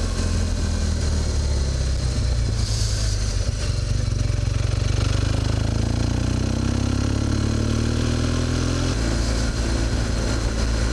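BMW GS motorcycle engine running under way, with steady road and wind noise and a brief hiss about three seconds in. The engine note climbs steadily for a few seconds, then drops sharply about two seconds before the end.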